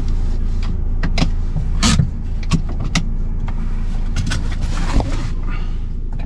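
Car moving slowly, with a steady low engine and road rumble and about half a dozen irregular sharp clicks and knocks.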